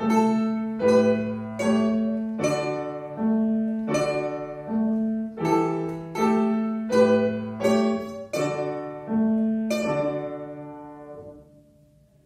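Domra and piano playing a piece together, with notes and chords struck about every three-quarters of a second. About ten seconds in a final chord rings out and fades away.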